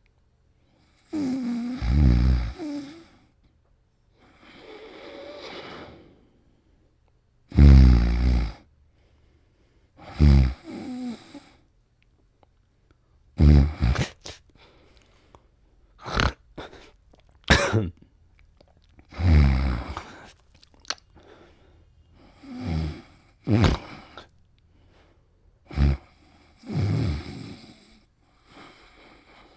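Snoring in deep sleep: a rattling snore every two to three seconds, each lasting a second or two. From about 13 to 26 seconds in, short sharp snorts come between the snores.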